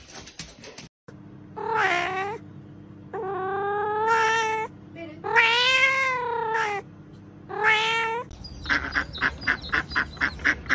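A cat meowing in four long, drawn-out yowls that rise and fall in pitch. Near the end a mallard duck quacks rapidly, about five quacks a second.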